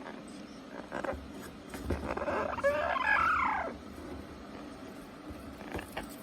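Amazon parrot giving one drawn-out, warbling call about two seconds in, lasting a second and a half, with a few short crunches and clicks of cardboard being worked by its beak before and after.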